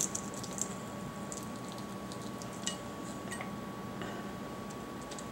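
Small crackles and soft clicks of quail eggshell being peeled by hand off a hard-boiled quail egg. The clicks are thickest about the first half-second and come sparsely after that.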